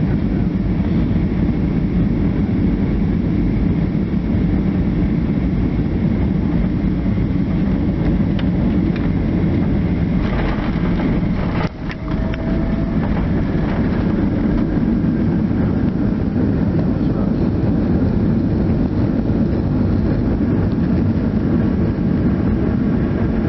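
Steady engine and rushing-air noise inside a jet airliner's cabin during landing, with one short knock about halfway through as the wheels touch down.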